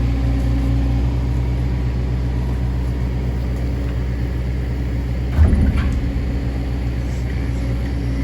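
Kubota mini digger's diesel engine running steadily while it works a rotator log grab, with one loud knock and a short clatter about five seconds in.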